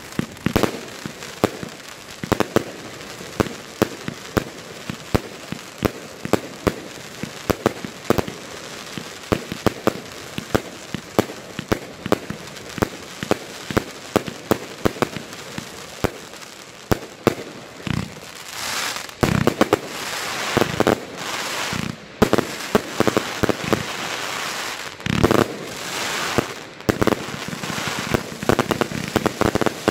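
Toschpyro Gigaverbund, a 144-shot firework compound cake, firing a rapid run of shots, each launch followed by its burst in the air. In the second half the shots give way twice to stretches of dense crackling, at about 18 to 22 seconds and again at 25 to 27 seconds, before the sharp shots pick up again near the end.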